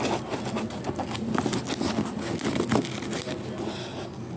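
A plastic mailer package being pulled and torn at by hand, with irregular crinkling and crackling, as it resists opening.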